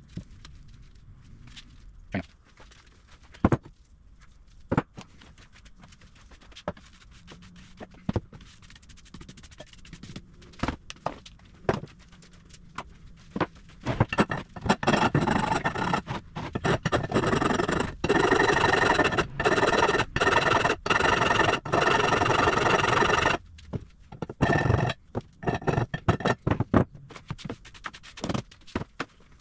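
Metal parts of a 6-inch Kobalt cast-iron bench vise clinking and knocking as the vise is put back together, then a loud continuous scraping of metal on metal lasting about nine seconds, followed by more irregular knocks.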